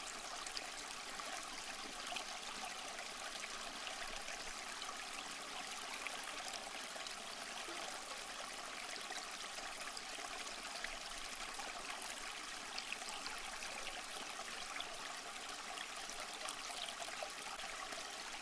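Steady trickling and splashing of circulating aquarium water, with faint clicks scattered through it.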